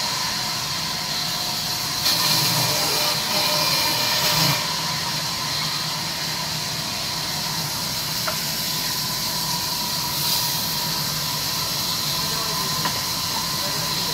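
Large sawmill band saw running, its blade ripping timber with a steady hiss over a hum and a thin whine, swelling a little a couple of seconds in.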